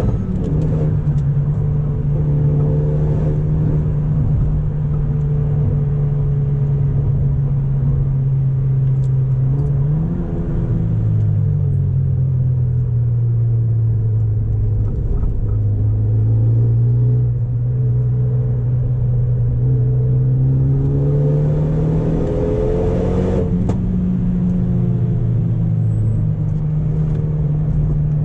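Renault Megane RS turbocharged four-cylinder with an Akrapovic exhaust, running steadily at moderate revs while driving. The engine note steps down in pitch several times, as at gear changes, and climbs gently in between.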